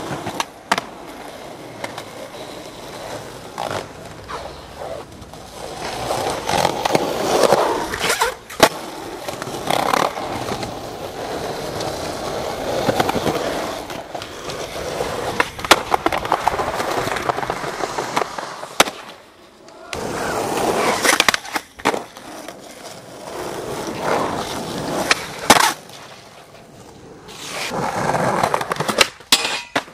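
Skateboard wheels rolling on concrete, a rough rumble that swells and fades as the board passes, broken every few seconds by sharp clacks of the board hitting the ground. Several short runs follow one another, with brief near-quiet breaks between them.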